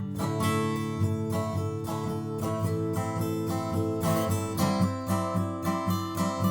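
Background music: acoustic guitar being strummed and picked.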